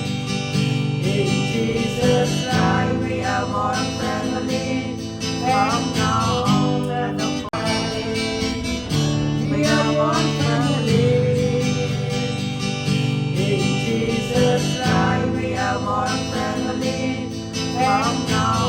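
Background music led by a strummed acoustic guitar, with a melody line over steady repeating chords.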